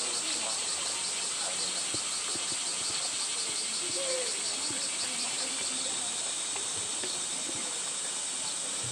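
Steady chorus of insects, a continuous high buzzing chirr that holds an even level throughout.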